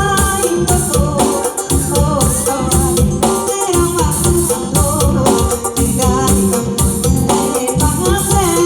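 Instrumental music from a Thai lae/mor lam backing band: a sustained melody line over a steady, even drum beat, with no singing.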